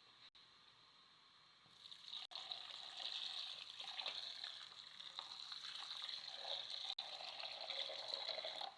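Water pouring or running steadily for about seven seconds, then stopping abruptly.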